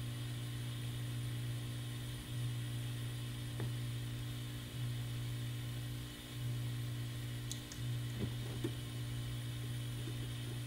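A steady low electrical hum that dips out briefly every second or two, under a faint hiss, with a few light ticks and clicks of the soldering iron and tool working an IC's pins on the circuit board.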